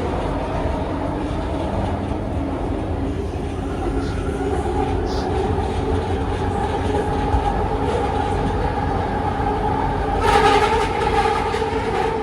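Bombardier Innovia ART 200 metro train heard from inside the car while running, with a steady hum from its linear induction motor and drive, several held tones over wheel and track rumble. About ten seconds in the running noise gets louder and brighter, with some clicks.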